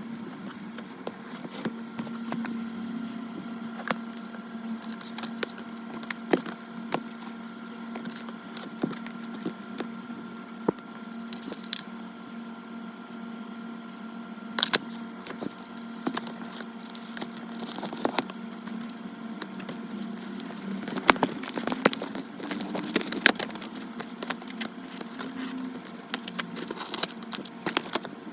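Hands handling and opening the Apple Watch Ultra's packaging: irregular clicks, taps and crackles of cardboard and plastic, busiest about three quarters of the way through, over a steady low hum.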